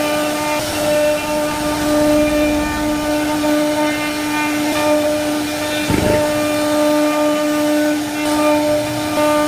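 CNC wood router's spindle running with a steady whine over the rough noise of the bit cutting fluting into wood, with a brief thump about six seconds in.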